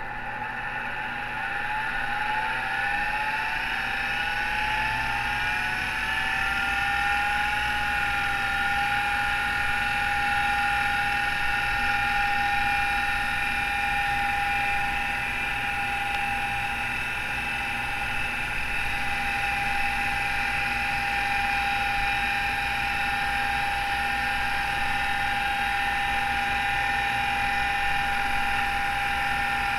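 Miniscribe 2012 MFM hard drive in an IBM 5150 spinning up: its whine rises in pitch for about seven seconds, then settles into a steady high whine made of several tones, over a low hum. The whine comes from noisy spindle bearings.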